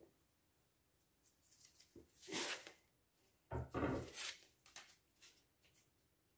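Stiff dry lasagna sheets being handled and laid into a glass baking dish: a rustling scrape about two seconds in, then a louder clatter with a dull knock about three and a half seconds in, followed by a few small taps.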